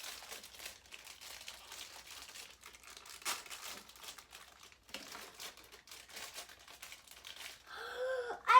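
Plastic toy wrappers crinkling and tearing as they are unwrapped by hand, with a louder crackle about three seconds in. A child's voice starts near the end.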